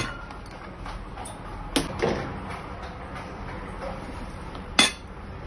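Sharp knocks of kitchen utensils against a glass mixing bowl of whipped cream: one at the start, two close together about two seconds in, and a loud one near the end.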